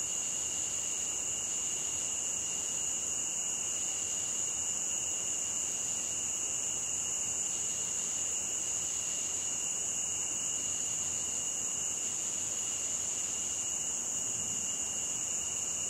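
Steady chorus of insects, two constant shrill tones, one very high and one lower, running without a break over a faint hiss.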